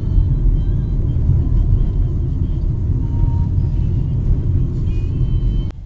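Low, steady rumble of a taxi driving, engine and road noise heard inside the car's cabin. It cuts off abruptly near the end.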